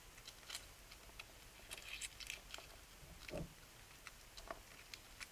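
Foil wrapper of a Kinder Surprise egg crinkling faintly as fingers peel it, in scattered small crackles and ticks, denser about two seconds in, with a soft handling bump a little after three seconds.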